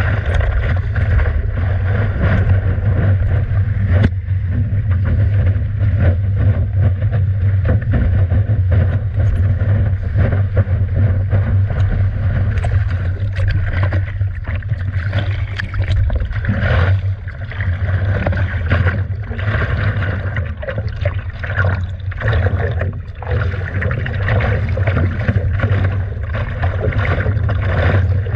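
Water splashing and sloshing against a stand-up paddleboard moving through the sea, with wind buffeting the board-mounted microphone as a steady low rumble.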